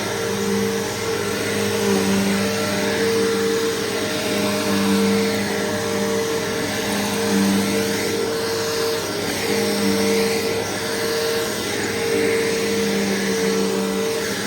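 Bissell PowerForce Bagged upright vacuum (model 3522-5) running steadily while vacuuming, its motor hum and airflow hiss swelling and easing every couple of seconds.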